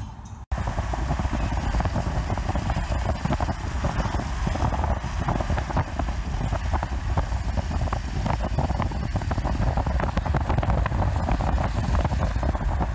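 Loud wind buffeting the microphone over the rumble of a car driving along the road. It starts suddenly about half a second in.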